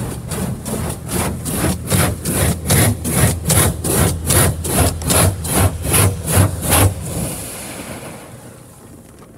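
Water jets from the Autec Evolution car wash's spray arm beating against the car in rhythmic pulses about twice a second, heard from inside the car, with a low rumble underneath. The pulses fade away in the last couple of seconds as the spray moves off.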